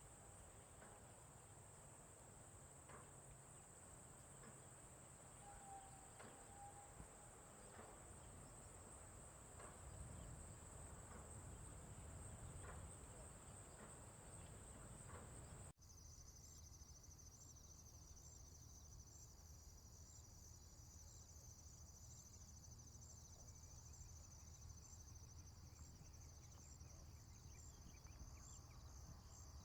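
Faint, steady, high-pitched insect chorus. About halfway through it cuts off suddenly and another insect chorus follows, a little lower in pitch and pulsing rapidly.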